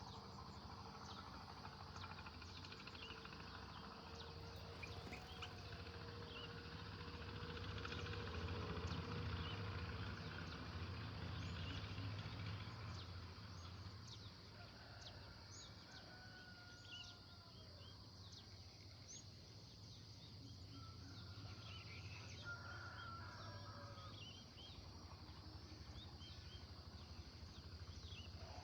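Songbirds chirping in many short, scattered calls over a steady high insect hiss and a low rumble.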